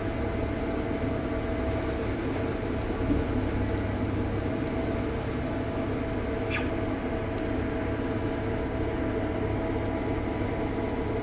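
Case IH combine running steadily under load as it threshes thick, heavy wheat, with its feeder pulling the crop through: a constant machine drone with a low hum and several steady tones.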